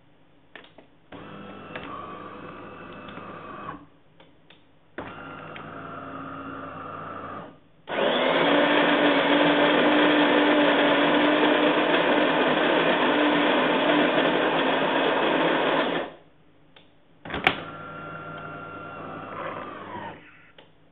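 DeLonghi Magnifica bean-to-cup espresso machine working through a brew cycle. It whirs in two shorter spells, then makes a loud steady mechanical noise for about eight seconds. After a sharp click, it whirs once more.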